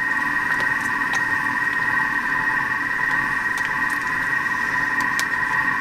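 Thermomix running on reverse at stirring speed 1 while heating mushrooms in oil at Varoma temperature: a steady, high two-note whine. A few faint clicks of a spoon stirring crème fraîche in its plastic tub.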